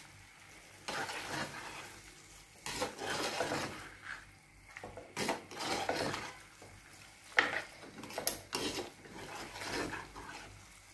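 Steel spoon stirring and scraping beef pieces through thick masala gravy in a black chatti cooking pot, in irregular strokes a second or two apart. The beef is being sautéed so its water cooks off and it binds with the masala.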